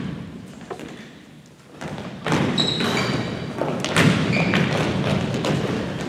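Basketball thudding on a gym floor, then from about two seconds in a louder wash of player and spectator noise with short high squeaks.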